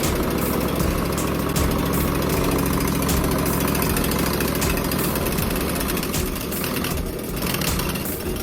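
Dirty Hand Tools snowblower's engine running steadily, dipping slightly in level about six seconds in.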